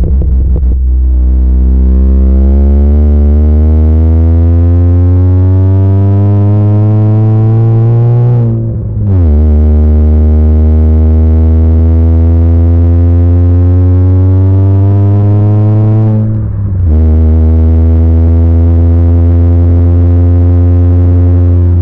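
Honda Fit's 1.5-litre four-cylinder engine droning through a freshly installed Yonaka aftermarket exhaust under acceleration, heard from inside the cabin. The drone climbs slowly in pitch, then drops twice as the car shifts up, at about eight and about sixteen seconds in.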